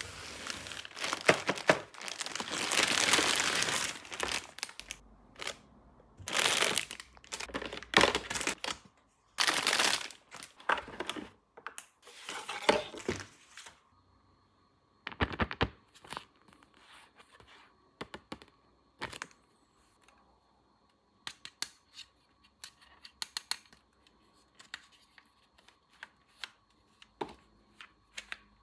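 Plastic toy packaging being torn open and crinkled in several loud bursts through the first half, then small sharp clicks and taps of light plastic pieces being handled.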